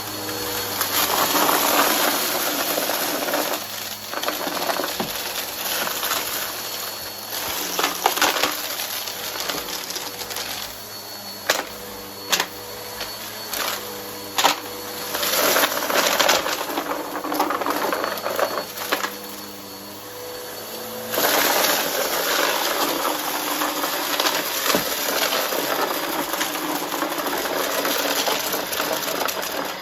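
Vacuum cleaner with a brush roll running over a pile of debris, crunching and rattling as the mess is sucked up, with several sharp clicks of hard bits hitting the machine. The crunching swells and grows denser about two-thirds of the way through.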